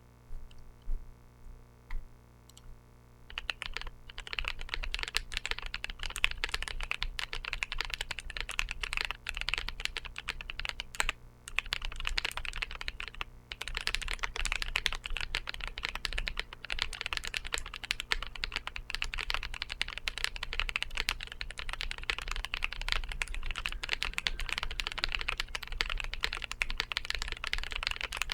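Percent Studio Skog Reboot mechanical keyboard being typed on: Drop Holy Panda tactile switches with SPRiT 62 g springs under GMK Godspeed keycaps. A few single key presses at first, then about three seconds in steady fast typing, broken by two brief pauses.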